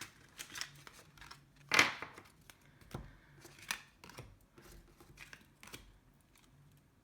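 Tarot cards being slid and set down on a surface by hand: a run of short scrapes and taps, the loudest about two seconds in.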